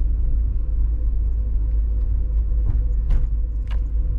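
Steady low rumble of a Nissan Cube driving slowly, heard from inside the cabin, with a thin steady hum above it. A few faint light clicks come in the second half.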